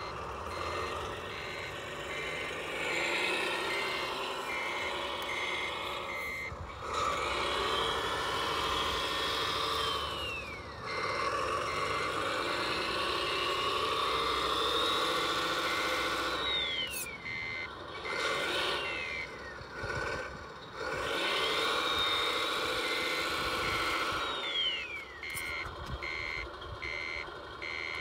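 Radio-controlled truck with its reversing beeper sounding at about two beeps a second, while its electric drive motor whines up and then winds down several times.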